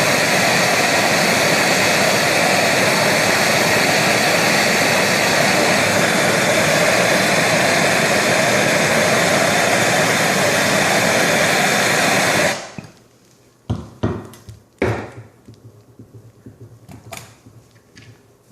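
Handheld gas torch flame roaring steadily while heating a copper pipe joint for soldering, then shut off suddenly about two-thirds of the way in. A few sharp knocks and small clicks follow.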